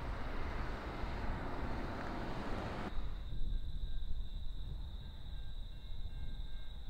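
Rural outdoor ambience: a broad rushing noise that cuts off abruptly about three seconds in, leaving a low wind rumble and a steady high-pitched insect drone.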